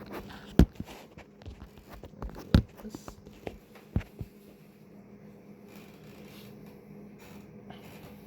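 Handling noise from a camera being moved and set down: several sharp knocks and clicks in the first four seconds, over a faint steady hum that carries on alone after that with a little light rustling.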